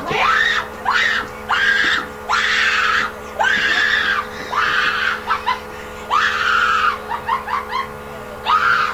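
A person screaming over and over in fright at a prank: a string of long high shrieks, each sweeping up at the start and then held, giving way to shorter rising squeals near the end.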